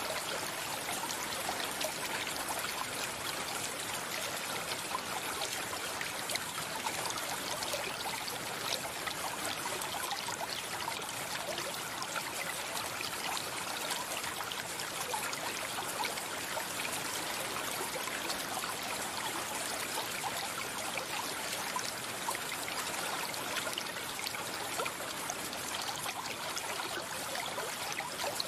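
A stream running steadily, an even rush of flowing water.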